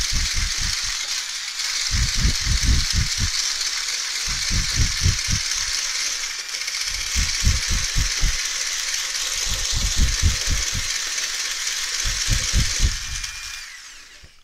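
An electric mixer beating whipping cream in a bowl: a steady, loud hissing rattle with irregular low knocks. It dies away near the end as the mixer is stopped.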